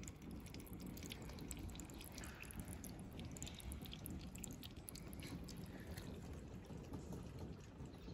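Water dripping and trickling in a plastic rain gutter just after it has been hosed out: faint, scattered drips over a low steady rumble.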